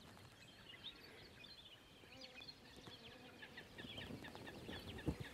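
Faint forest birdsong: many small birds chirping and twittering in short, quick notes, with a single short knock about five seconds in.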